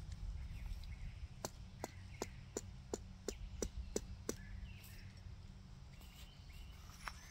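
A tent stake being hammered into the ground: about nine quick, evenly spaced strikes, roughly three a second, starting about a second and a half in and stopping a little past the middle.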